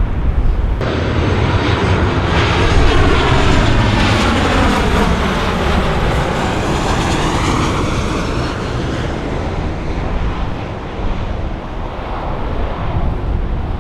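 Jet airliner flying past close by: a loud, steady rush of engine noise whose pitch sweeps downward as it passes, easing off near the end.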